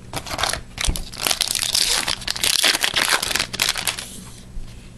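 Foil wrapper of a 1997-98 Pinnacle Certified hockey card pack crinkling as it is handled and torn open by hand, dying down about four seconds in.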